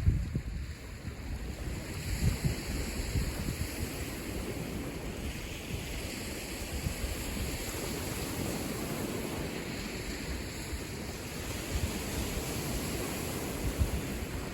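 Lake waves washing onto the shore in a steady wash, with wind buffeting the microphone in low gusts, strongest near the start and again near the end.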